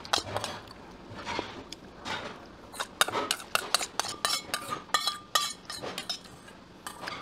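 Cutlery clinking against dishes during eating: scattered clicks, then a quick run of clinks in the middle, some ringing briefly.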